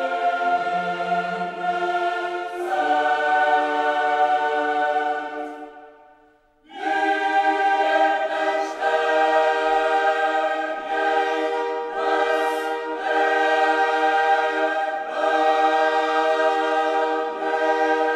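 Background music of slow, held choir-like chords that change every second or two, fading out about six seconds in and coming back in abruptly a moment later.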